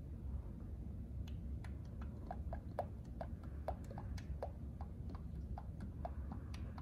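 Motor oil glugging out of a 5-quart plastic jug into a funnel: irregular short gulps, about four a second, as air bubbles back into the jug, over a low steady hum.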